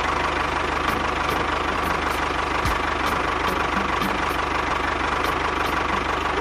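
Engine idling steadily with a fast, even knocking beat, the sound of a tractor running.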